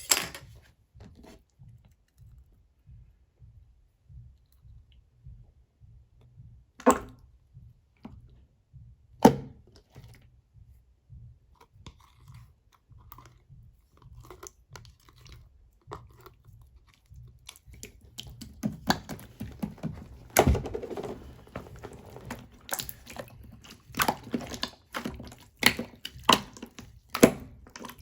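Soap being broken up and crushed by hand: a few sharp clicks at first, then, from about two-thirds of the way in, a dense run of fast crackling clicks.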